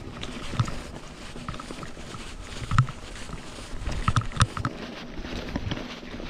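Giant Talon 3 mountain bike rolling fast down a dirt trail: a steady rush of tyre noise and wind on the microphone, broken by sharp knocks and rattles from the bike over bumps, the loudest about three seconds in and again around four seconds in.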